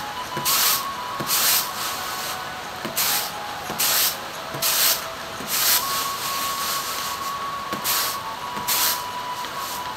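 Rice being winnowed on a round woven bamboo tray: the grains swish and rattle across the bamboo with each toss, in repeated surges about once a second with a short pause near the middle. The stored ration rice is being shaken clean of husk and dust.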